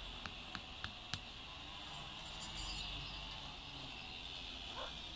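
Mallet tapping a metal tent peg into the ground, quick strikes about three a second that stop about a second in, followed by a few faint light clinks.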